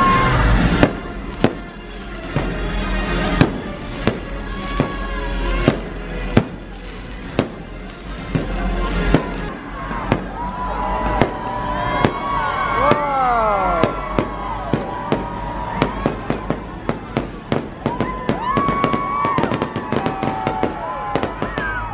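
Fireworks shot off the cruise ship, a string of sharp bangs over loud music, the bangs coming thick and fast in a crackling run near the end.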